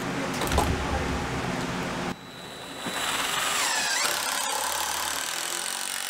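Craftsman cordless impact driver running, driving screws into wooden framing studs in two runs, with a short break about two seconds in.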